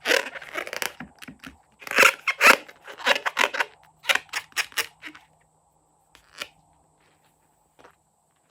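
Scissors snipping and rustling through a rubber balloon in a quick run of short cuts, thinning to a few scattered faint sounds after about five seconds.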